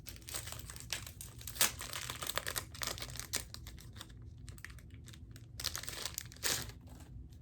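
Jewelry packaging crinkling and tearing as it is opened by hand: a run of sharp crackles, thinning out about halfway through, with one louder crackle near the end.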